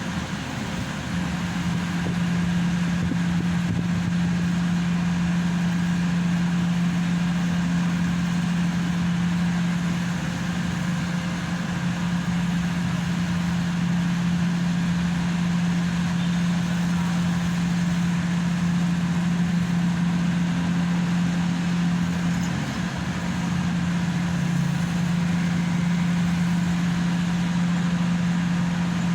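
Hydraulic static pile driver's engine and hydraulic power unit running steadily with a strong low hum, which dips and wavers briefly about 22 seconds in.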